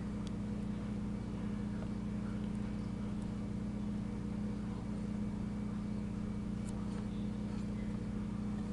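Steady low machine hum made of several fixed pitches, with a few faint clicks.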